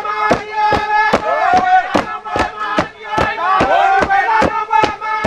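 Group of dancers chanting and singing a traditional dance song over a steady beat of sharp strikes, about three to four a second.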